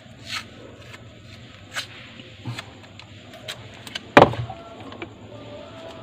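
Scattered clicks and knocks from handling refrigerator parts and wiring by hand, with one louder knock a little past four seconds in. A steady hum sets in near the end.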